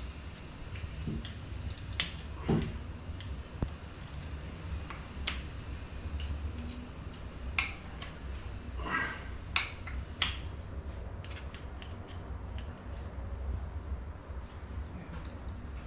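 Scattered small clicks, knocks and a brief scrape of hand tools and metal fork parts being handled during motorcycle fork reassembly, over a steady low background hum.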